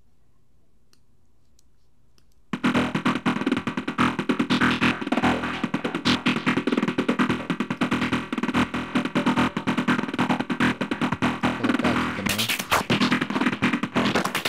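Psytrance-style synth sequence from the Serum wavetable synthesizer through a bandpass filter: a fast, rhythmic pulsing pattern that starts about two and a half seconds in after a few faint clicks, and grows brighter about twelve seconds in.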